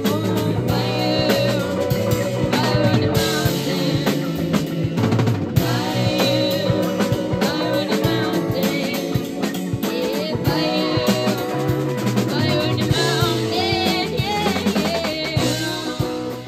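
Live psychedelic jazz band playing: drum kit, electric guitars and bass under a wavering saxophone melody.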